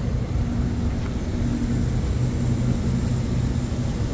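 Steady low drone of a ship's machinery, holding two low hum tones, with a faint hiss of rain over it.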